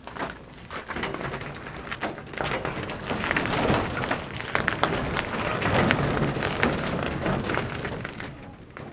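Wheeled mobile chicken coop (chicken tractor) pushed by hand over icy, bumpy ground: a dense clatter of crunching and knocking. It builds up a few seconds in and eases off near the end.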